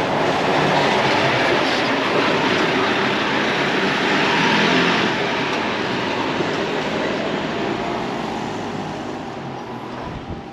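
Loud passing vehicle noise, an even rumble that swells and then fades away over the last couple of seconds.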